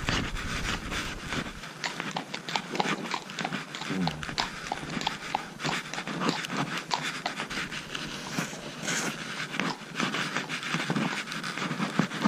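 A horse walking under saddle, its hooves clopping irregularly on the road over a steady breathy hiss, with a short low grunt-like sound about four seconds in.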